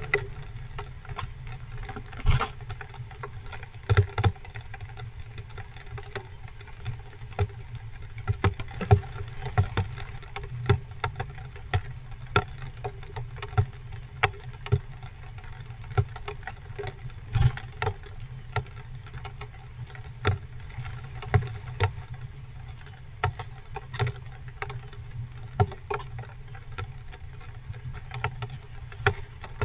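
Irregular sharp taps and knocks in a wooden nest box, one or two a second and uneven in strength, over a steady low hum. They come from a squirrel shifting on the wood shavings inside and from rain dripping on the box.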